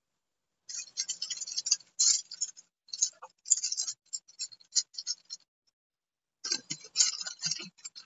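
Crinkling and rustling of a cardboard snack box and plastic-wrapped muffin pouches being handled, in two stretches of rapid crackle with a short pause about five seconds in.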